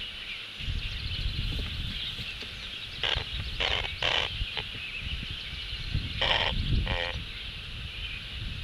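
Short animal calls, three close together about three seconds in and two more about six seconds in, which the uploader takes for a great blue heron snoring in its sleep. Under them run a steady high hiss and a low rumble like wind on the microphone.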